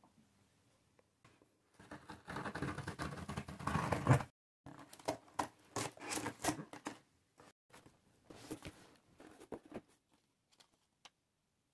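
A cardboard box being opened with scissors: the blade scrapes and slices along the packing tape, loudest for a couple of seconds near the start. Then comes a run of shorter scrapes and crackles that thins out as the flaps come open and the paper packing slip is handled.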